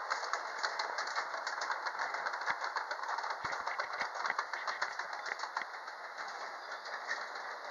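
G-scale model train's wheels rolling and clicking rapidly over the track joints, a dense clatter over a steady rushing, thinning out toward the end as the train moves away.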